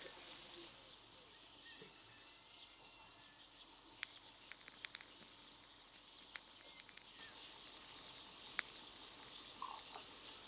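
Quiet outdoor ambience: a faint steady hiss, with scattered small sharp clicks from about four seconds in.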